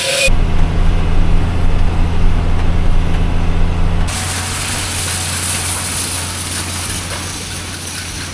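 Farm tractor engine running steadily with a deep hum. About four seconds in, the sound changes abruptly to a steady hiss over a quieter engine drone.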